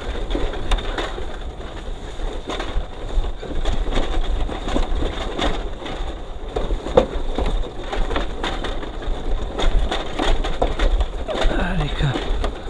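Dry leaves and twigs crunching and snapping in irregular crackles, over a steady low rumble.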